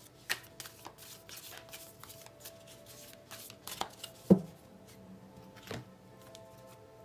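Tarot cards being shuffled by hand: a run of soft card rustles and flicks, with a few sharper taps and one louder knock about four seconds in as cards are handled against the cloth-covered table. Faint background music plays underneath.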